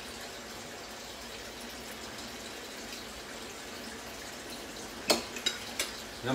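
A steady faint hiss in the room, then, about five seconds in, three quick sharp clinks of a metal fork against a white ceramic bowl as the fork is set down in it.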